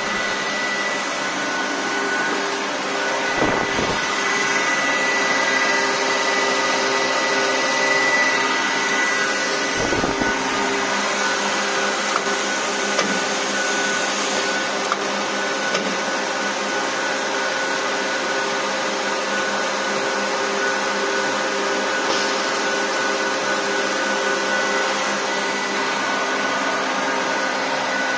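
Tecnolegno TGL 640 edge-banding machine running, its electric motors making a steady whine with several constant tones. Two brief low thuds come about three and ten seconds in.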